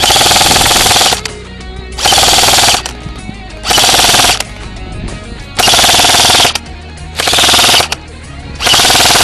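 Airsoft electric gun firing full-auto, close by: six short bursts of rapid buzzing fire, each under a second long, about every one and a half seconds.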